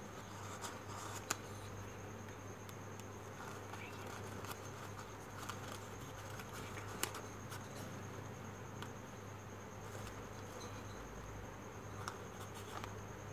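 Faint crinkling and small crisp clicks of folded paper being handled as the last paper unit is worked into an origami ball. A steady low hum and a thin, steady high-pitched tone run underneath.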